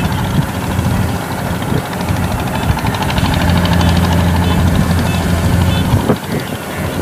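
Kubota DC-93 combine harvester's diesel engine running under load as it works through deep, sticky mud: a steady low hum that grows louder and steadier about three seconds in. There is a brief dip with a single knock about six seconds in.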